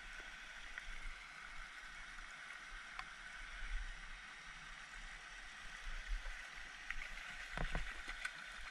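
A hooked trout splashing at the water's surface a few times near the end, sharp splashes over a steady outdoor hiss while it is played on ultralight spinning tackle.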